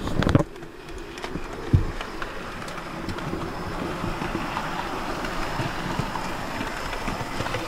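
OO gauge model of the A2 steam locomotive 'Blue Peter' running round the layout under DC power: a steady whirr of its motor and wheels on the rails, with light clicks over rail joints and points. A brief loud knock at the very start.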